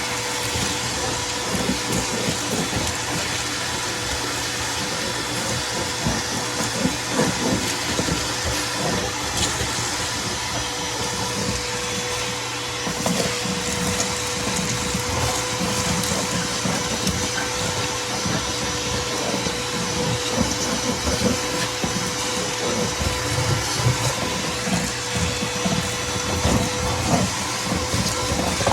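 Vacuum cleaner running steadily, a constant motor whine over a rushing hiss, with irregular low bumps and scuffs underneath.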